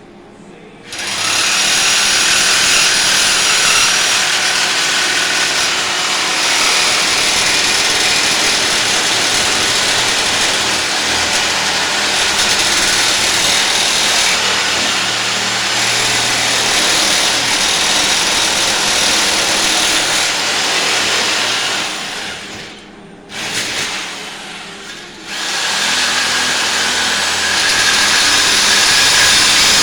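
Reciprocating saw (Sawzall) cutting through a bicycle frame tube. It runs steadily, stops briefly twice a little past twenty seconds in, and then carries on cutting.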